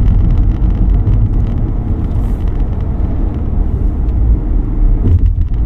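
Car driving: steady low road and engine rumble heard from inside the cabin.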